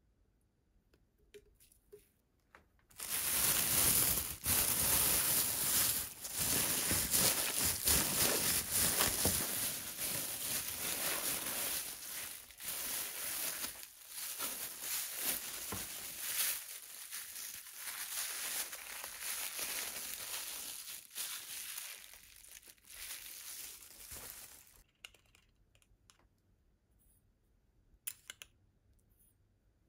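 Thin plastic bag crinkling loudly and continuously as raw chicken pieces and seasoning are kneaded inside it by hand. It starts about three seconds in and stops a few seconds before the end, and a light tap follows near the end.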